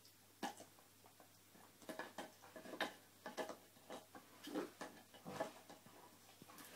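Labrador gnawing an antler chew: irregular clicks and short scrapes of teeth on antler, coming more thickly from about two seconds in.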